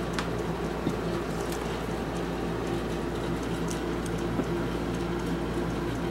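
Steady low machine hum in the room, with a few faint clicks and rustles from a tape measure and fabric being handled.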